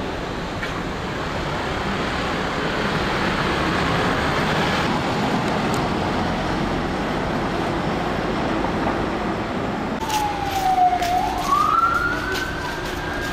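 Steady street and wind noise, then about ten seconds in a siren starts wailing: its pitch dips, then rises and holds high, with a few sharp clicks alongside.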